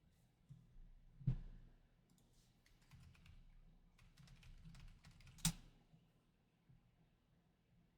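Light typing on a computer keyboard in short irregular runs, with two louder knocks, one about a second in and one at about five and a half seconds.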